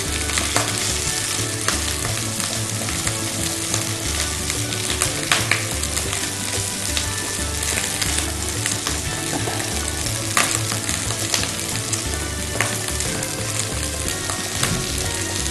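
Chopped onions sizzling and crackling in hot oil in a frying pan, stirred with a silicone spatula, with scattered sharp pops and scrapes over a steady sizzle; the onions are starting to brown.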